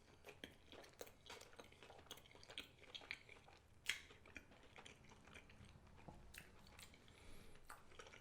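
Quiet, close-up chewing of a veggie burger with cheese, a series of small wet clicks and soft crunches of the mouth, one slightly louder about four seconds in.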